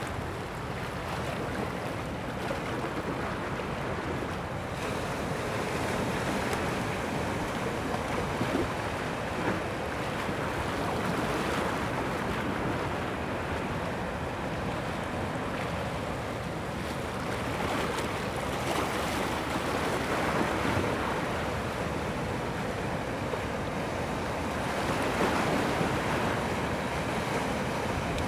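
Sea surf breaking and washing against shoreline rocks, with wind on the microphone; a steady rushing that swells louder now and then as waves come in.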